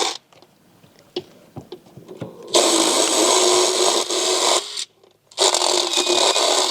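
Motorized equine dental float grinding a horse's back teeth, running with a steady hum in bursts. It stops for about two and a half seconds, with a few light clicks, then runs for about two seconds, cuts out for half a second and starts again.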